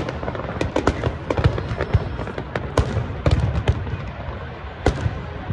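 Fireworks going off in quick succession: many sharp cracks and bangs over a continuous low rumble, with one of the loudest cracks near the middle.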